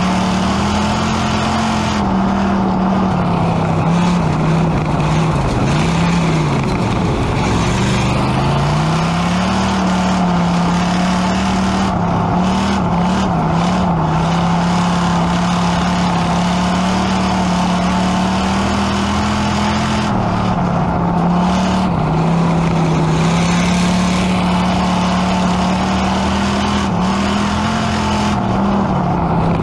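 Pure Stock dirt-track race car's V8 engine heard from inside the cockpit, running steadily at part throttle. Its pitch dips and picks back up about six to eight seconds in, as the car slows from racing speed to a crawl.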